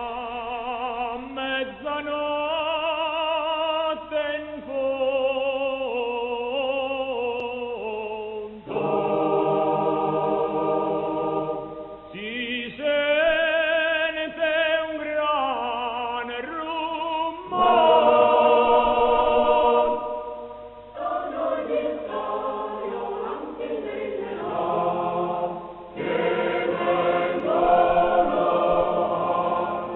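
Background music: a choir singing slow phrases of long, wavering held notes, with short breaks between the phrases.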